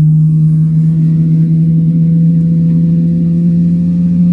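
GE90-115B turbofan of a Boeing 777-300ER spooling up during engine start, heard from inside the cabin: a loud, steady low hum whose pitch slowly rises.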